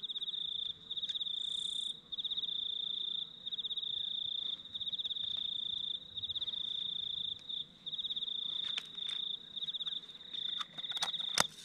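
A cricket chirping in a steady run of short pulsed trills, each about half a second to a second long, with brief gaps between them. A few light clicks come in near the end.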